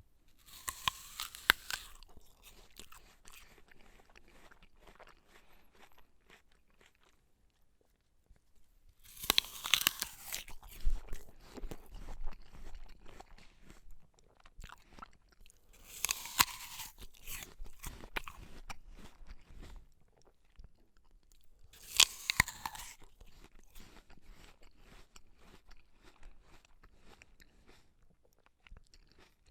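A person biting into an apple four times, several seconds apart. Each bite is a loud crunch followed by stretches of quieter chewing.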